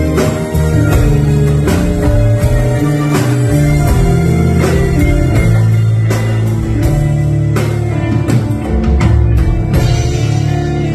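Band playing the instrumental introduction to a song: held chords over a steady percussion beat, with no singing yet.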